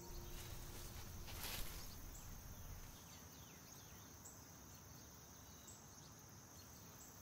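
Faint outdoor ambience: a steady high insect drone over a low rumble, with a few faint chirps and a brief rustle about a second and a half in. The last of a ringing, singing-bowl-like music tone dies away in the first second.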